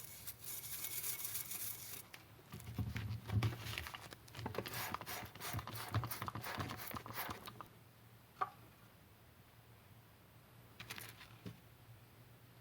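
Hand-tool work on a part: irregular scraping and rubbing strokes for the first seven seconds or so, then a single sharp click and, a couple of seconds later, a brief rattle.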